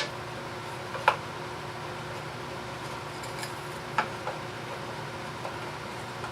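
Wooden workpieces being picked up and handled: a few light knocks and clicks, the clearest about a second in and about four seconds in, over a steady room hum.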